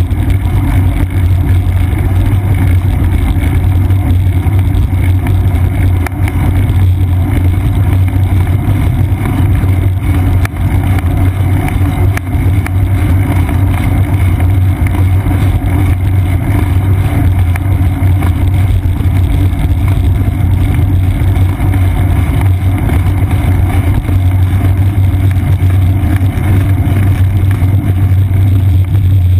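Steady low rumble of wind and road vibration picked up by a seat-post-mounted action camera on a bicycle rolling along a paved path.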